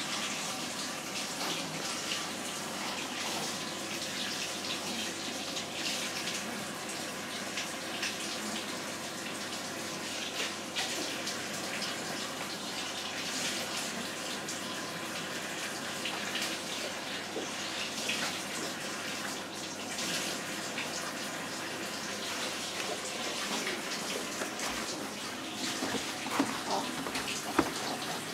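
Steady rushing noise like running water, with a few knocks and rustles near the end.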